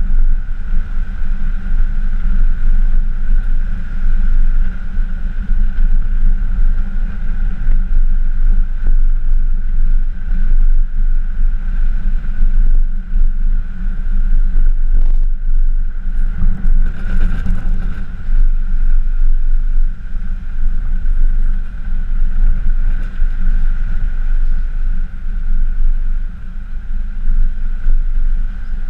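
Pickup truck towing an off-road camper trailer along a rough forest track: a loud, steady low rumble of engine and road noise, with a brief louder noise about 17 seconds in.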